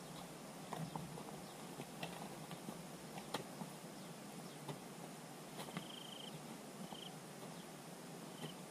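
Faint outdoor background hiss with scattered light clicks and three short, high chirps in the second half.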